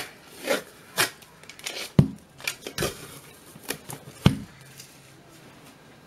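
Old sticky tape being peeled off from around a metal module case, in short crackling rips and clicks, with a couple of sharper knocks from the case being handled. It dies down after about four and a half seconds.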